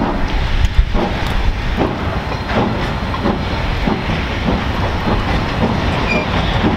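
Soo Line 1003, a 2-8-2 Mikado steam locomotive, running with its train: a steady rhythm of regular beats over continuous heavy train and rail noise.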